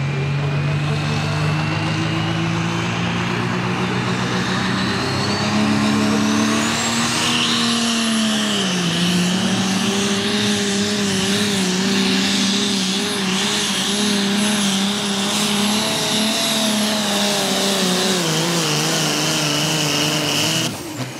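Turbocharged diesel engine of an Allis-Chalmers D21 pulling tractor running hard under load as it drags the weight-transfer sled. A high turbo whistle climbs steadily over the first eight seconds and then holds, the engine note sags about nine seconds in and wavers, and the sound falls away abruptly just before the end as the run finishes.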